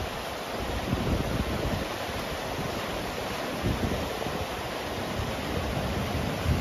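Rushing river water over shallow rapids, a steady hiss, with wind buffeting the microphone in uneven low gusts.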